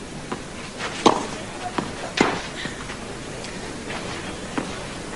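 Tennis ball struck back and forth by rackets in a baseline rally: four sharp hits about a second apart, the first two loudest, over a steady low background hiss.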